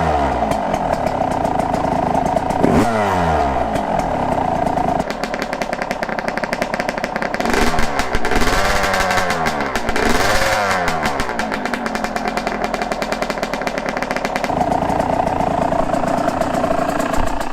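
Yamaha YZ125 two-stroke single, fitted with a new stock header and silencer, idling and being blipped: about four times the revs jump and fall back to idle. The rider calls the note crispy.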